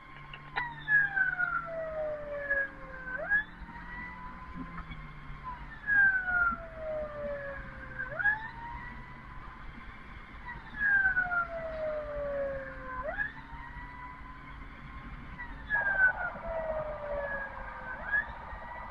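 Ambulance siren wailing. Each cycle rises quickly and then falls slowly, repeating about every two and a half seconds.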